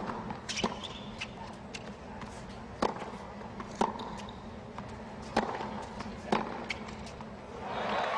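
Tennis rally on a hard court: the ball pops sharply off the racquets and court about once a second over a steady crowd murmur. Near the end the point ends and crowd noise swells into cheering.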